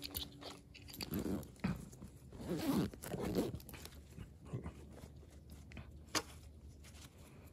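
Faint handling noises: soft rustling and crunching in uneven bursts, with one sharp click about six seconds in.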